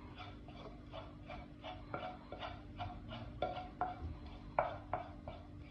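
A utensil scraping thick cooked semolina out of a non-stick frying pan: quick repeated scrapes and taps against the pan, about three or four a second, the strongest about four and a half seconds in.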